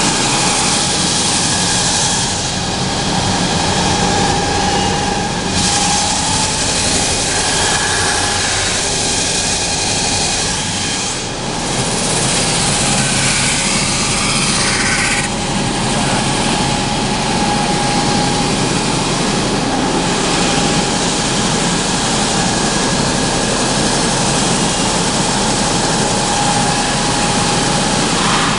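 Industrial wide-belt sanding machine with conveyor feed running steadily: a loud, even rushing noise with a steady hum held under it.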